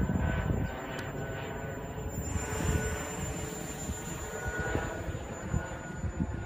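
Electric motor and propeller of an FPV model aircraft running with a thin steady whine, under gusty wind buffeting the microphone.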